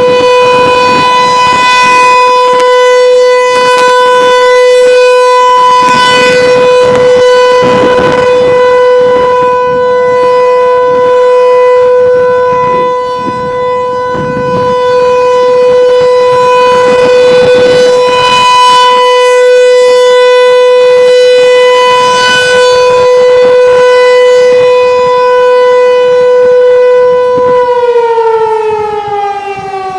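ASC T-128 outdoor tornado warning siren sounding during a routine monthly test, very loud and holding one steady tone. About two seconds before the end it begins to wind down, its pitch falling.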